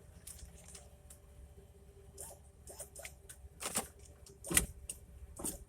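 Scattered light clicks and knocks of hand work on the door's window regulator and glass, over a faint steady hum. The two loudest knocks come near the middle and a second later.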